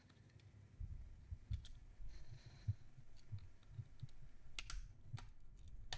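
Olympus Pen E-PL8 mirrorless camera handled in the hands: faint rubbing and scattered small clicks, with a quick cluster of sharper clicks near the end.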